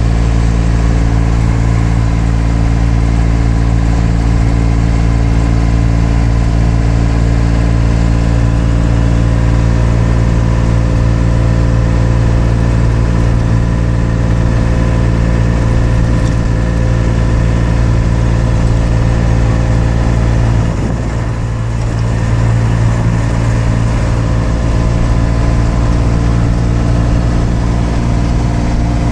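Tarpan 239D's Perkins diesel engine running steadily under way, heard from inside the cab, with a steady low drone. About two-thirds of the way through it briefly drops in level, then settles back.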